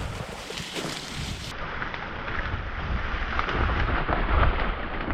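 Strong wind buffeting the microphone as a steady low rumble, with scattered light rustling over it.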